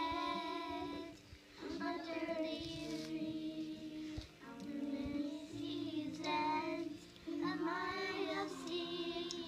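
Two young girls singing together in long held notes, four sung phrases with short breaks for breath between them.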